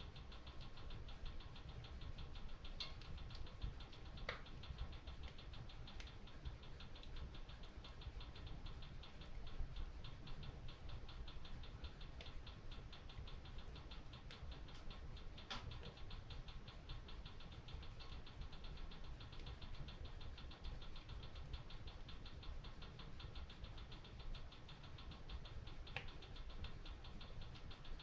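Wood fire crackling in a stone fireplace: a dense, fine crackle throughout, with about four sharper pops, over a low steady rumble.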